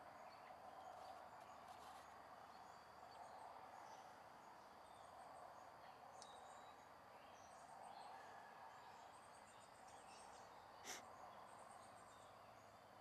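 Quiet evening ambience: faint high-pitched insect chirps in short pulsed trills over a soft, steady background hum, with a sharp click about eleven seconds in.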